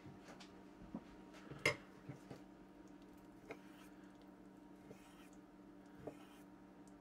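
Kitchen knife knocking and scraping against a wooden cutting board while trimming fat from a raw pork shoulder: one sharp knock about a second and a half in, then a few lighter clicks, over a faint steady hum.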